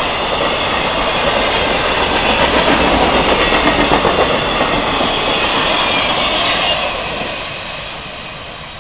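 Freight train of boxcars rolling past at close range, steel wheels running on the rails. The sound fades away near the end as the last car moves off down the track.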